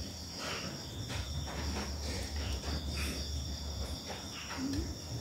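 Steady high-pitched chirring of insects, like crickets, with a low hum underneath.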